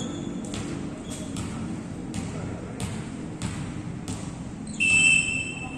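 A volleyball being hit and bouncing on a wooden court in a large hall, sharp knocks coming roughly every half second to a second over background voices. Near the end a short, loud whistle blast.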